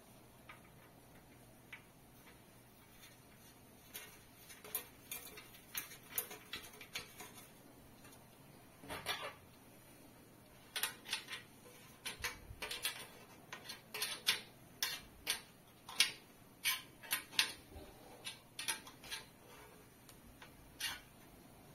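Small sharp clicks and light clatter as a ceiling light fixture is assembled by hand: a small spanner on a nut, and the housing and parts knocking together. The clicks come one at a time at first and crowd together in the second half.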